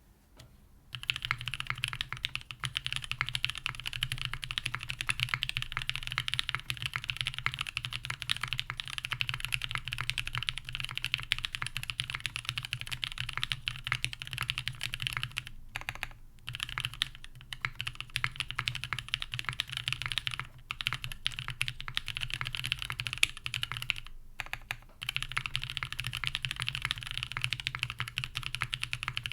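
Continuous fast typing on a Merisi Works Sessantacinque top-mount mechanical keyboard with a carbon fibre plate and no dampening. Its lubed linear Black Cherry Pies frankenswitches (Kailh Black stems, H1 bottoms, Cherry tops) sit under GMK Rudy keycaps. The typing starts about a second in and pauses briefly twice, about 16 and 24 seconds in.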